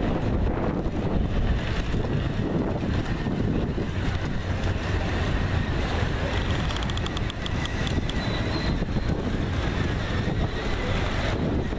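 Steady low rumble of wind buffeting the microphone over outdoor background noise.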